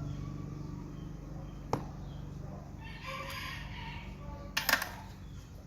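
A call of about a second, most likely an animal's, around the middle, over a steady low hum, with a sharp click before it and a short cluster of clicks after it.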